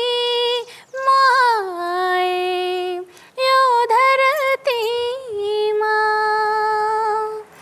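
A teenage girl singing a Nepali song unaccompanied, in four phrases of held and gliding notes with short breaths between them. The last note is held steady for about two seconds near the end.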